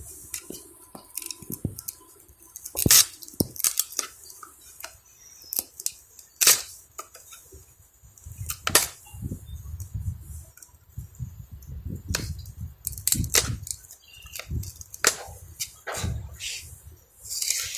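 Metal hive tool prying the wooden top board off a honey bee package box: a run of sharp, irregular clicks, cracks and scrapes of metal on wood, the loudest about 3 and 6.5 seconds in.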